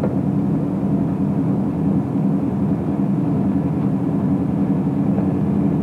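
A patrol boat's engines running steadily while it is under way at sea: a constant low drone with the rush of wind and water over it.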